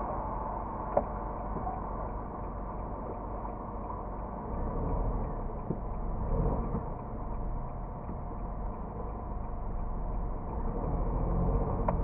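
Low steady rumble of a car idling and slow traffic, recorded by a dashcam inside the cabin, swelling a little around five to seven seconds in as a minivan pulls slowly past close by. A short click about a second in.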